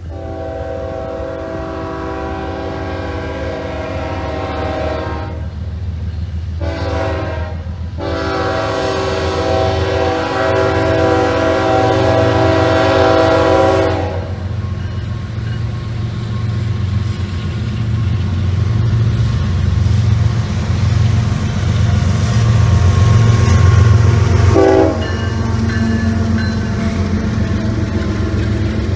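Norfolk Southern diesel freight locomotive's air horn sounding a multi-note chord: a long blast, a brief short one, and another long blast ending about halfway through. The low rumble of the diesel engines then builds as the locomotives pass, with the rattle of freight cars on the rails.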